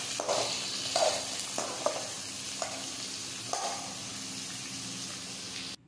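Chopped onions sizzling in hot oil in a metal kadai, with a metal spatula scraping across the pan every second or so as they are stirred. The sound cuts off abruptly just before the end.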